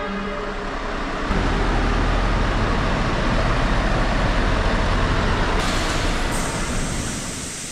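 Scania S-series V8 truck with a low-loader trailer driving slowly in, engine running with a low rumble that grows louder about a second in and eases off near the end.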